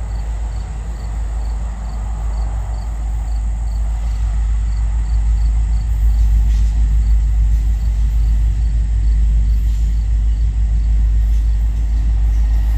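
Deep diesel rumble of Norfolk Southern train H66's approaching SD40E and SD40-2 locomotives, growing steadily louder. A faint high chirp repeats about three times a second through the first half.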